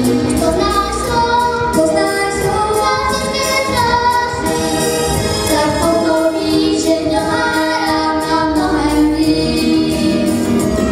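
Two young girls singing a duet into handheld microphones over recorded backing music with a steady beat, holding long notes.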